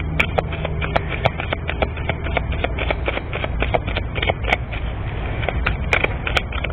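Rapid, irregular clicks and taps, several a second, over a steady low rumble.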